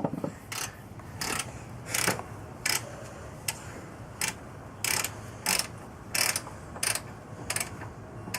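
Ratchet wrench being worked back and forth to tighten a wheel's nut, its pawl clicking in short bursts about every 0.7 seconds.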